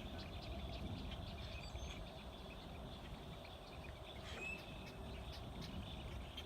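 Birds at a nesting rookery calling: many short, high chirps and calls overlapping, with one brief whistled note about four seconds in, over a steady low rumble.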